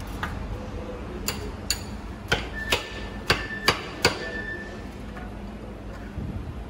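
Sharp knocks of a metal utensil on metal dishware, about eight in four seconds, some ringing briefly, as in cutting and serving kadayıf.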